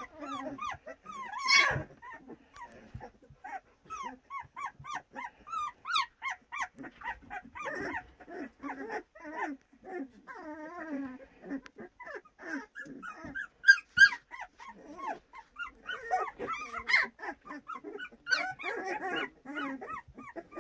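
A litter of young puppies play-fighting: a constant run of short high-pitched yips and whimpers mixed with small growls, with a few sharper, louder cries.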